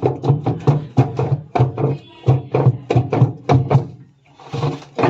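Samsung front-load washing machine drum knocking and clattering about three to four times a second over a low hum, the sign of a broken drum bracket letting the drum knock about. The knocking stops about four seconds in and is followed by a short rushing noise.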